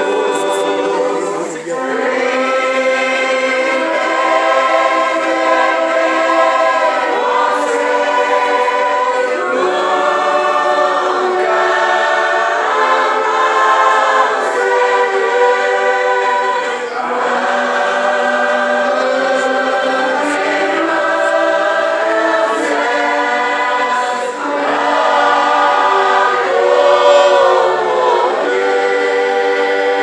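Choir singing a hymn in harmony with a wind orchestra of saxophones and clarinets, in long held phrases with short breaks between them.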